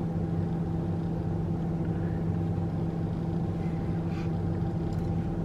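Steady hum of a car engine running, heard from inside the cabin.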